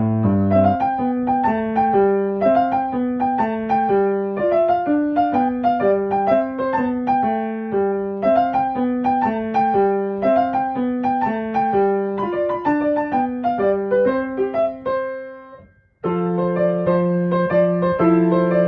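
Background piano music, a steady run of single notes with a gentle melody. It fades out about two-thirds of the way through, then starts again suddenly in a new passage.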